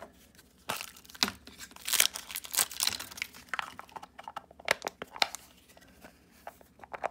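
Pink wrapper layers being torn and crinkled off a LOL Surprise Lils toy capsule, in irregular rustling bursts with a few sharp clicks from the capsule being handled.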